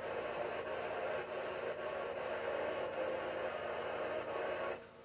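Static hiss from a weather radio tuned to a channel with no station coming in, steady, then cut off abruptly near the end.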